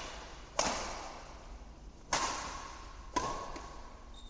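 Badminton rally: rackets striking the shuttlecock three times, a second to a second and a half apart, each hit echoing in the large hall.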